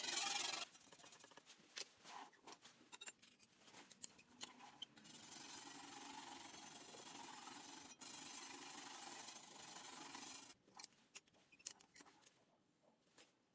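Hand work on a steel knife: a rubbing, scraping sound stops under a second in, followed by scattered light clicks and taps, a few seconds of steady faint scraping in the middle, and more clicks near the end.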